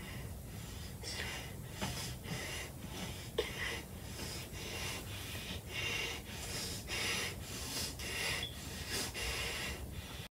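A boy's breathless laughter: a string of breathy wheezes and gasps, about one a second.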